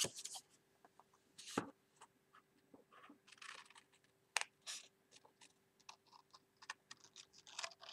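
Scissors cutting white photo card, a quiet series of short, irregular snips as the blades work along a pencil line.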